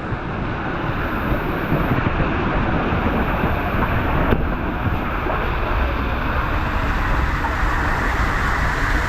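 Loud, steady rush of wind buffeting the microphone, mixed with rushing water.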